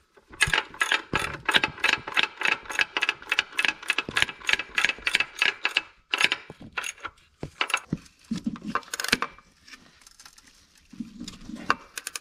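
Socket ratchet clicking rapidly as it is swung back and forth, driving in a starter bolt on a transmission bellhousing. A steady run of clicks, about four or five a second, lasts roughly six seconds, then slows into scattered clicks.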